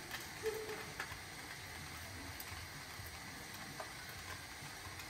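A few faint clicks and taps of a screwdriver working screws into the sheet-metal cooling tins of a Volkswagen air-cooled engine, over a steady hiss.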